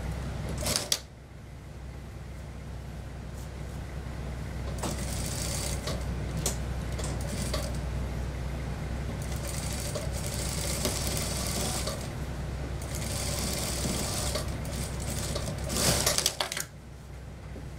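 Industrial lockstitch sewing machine stitching in several short runs, with a steady low hum between them. There is a sharp clatter about a second in and another near the end.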